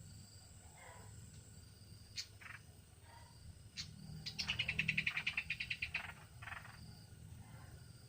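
A bird giving a rapid chattering run of short notes, about ten a second, for about a second and a half midway through, with a few single short calls before and after it.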